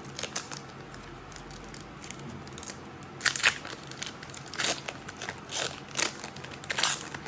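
Foil wrapper of a Pokémon booster pack crinkling and tearing as it is opened, in irregular sharp crackles, the loudest about three seconds in.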